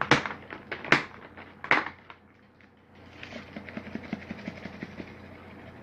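Three sharp clicks from the plastic lid of a grated parmesan shaker can, then about a second later a stretch of soft, rapid ticking as the grated cheese is shaken out over the lasagna.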